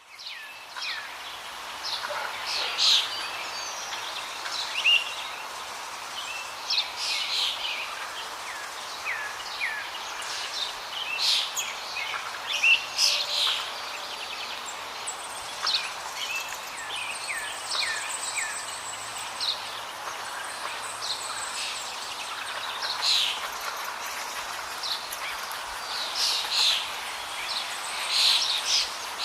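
Many birds chirping and calling: short, sharp chirps and quick falling notes, coming irregularly over a steady background hiss.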